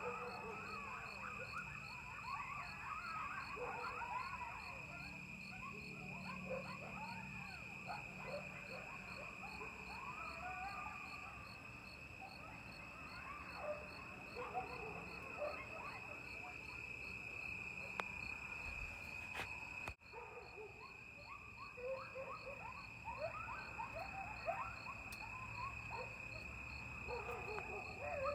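A chorus of coyotes yipping and howling, many short rising and falling calls overlapping, over a steady cricket trill and a low hum of distant highway traffic. The calling breaks off for a moment about two-thirds of the way through, then starts again.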